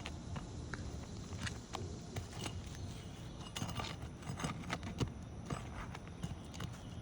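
Scattered light knocks and scrapes from work on an asphalt shingle roof, over a steady low rumble.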